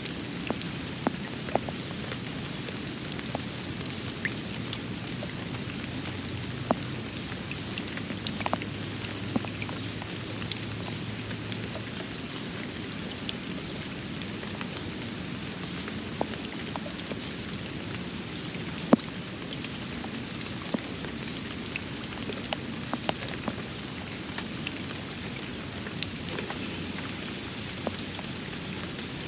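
Steady rain falling on a backyard pond, with frequent sharp, irregular drip clicks close by.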